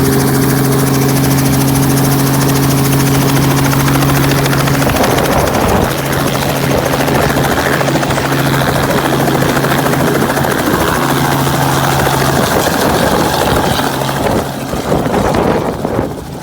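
Helicopter running loudly: a steady low hum with overtones for the first five seconds or so, then a broad rushing sound takes over. The sound falls away near the end.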